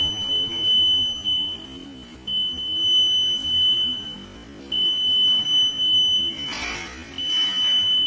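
Piezo buzzer of a DIY reed-switch door alarm sounding a steady high-pitched tone in stretches of about two seconds with short breaks: the alarm going off because the door has been opened and the reed switch has moved away from its magnet. Background music plays underneath.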